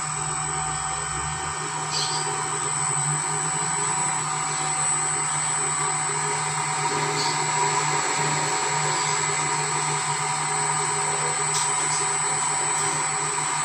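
Electric motor running on a variable frequency drive (JLS-E-2S-0.7G), giving a steady electrical whine with a high, thin tone over a low hum as its speed is turned up from the potentiometer.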